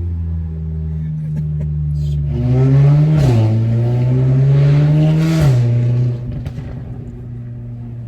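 2019 Audi S3 8V's turbocharged 2.0-litre four-cylinder, with a custom Rogue Performance exhaust, accelerating hard. The revs climb, dip briefly at a gear change about three seconds in, and climb again. About five and a half seconds in they drop off sharply as the throttle is lifted, settling to a lower steady drone.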